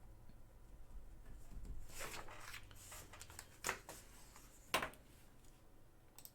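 Light rustling as something is handled, then two sharp clicks about a second apart.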